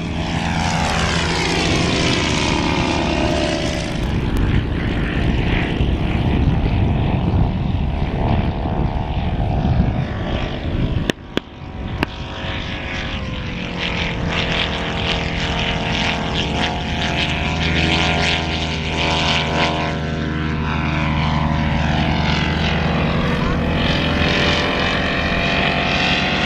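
Piston engines of vintage propeller aircraft flying past. A biplane's engine drone falls in pitch as it goes by. After a break about 11 seconds in, a monoplane's engine drones steadily, its pitch rising near the end as it comes closer.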